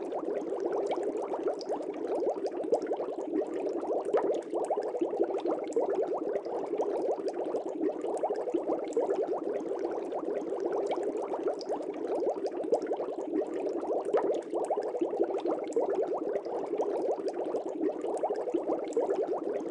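Continuous bubbling water: a dense, steady fizz of many small bubbles.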